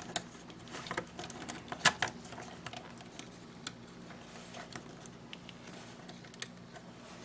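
Light plastic clicks and taps from handling an assembled Bandai HG Zowart Heavy model kit, its parts and joints knocking as it is turned and posed. The clicks are scattered and irregular, the sharpest about two seconds in, over a faint low hum.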